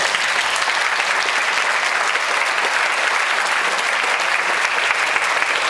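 Lecture-theatre audience applauding steadily.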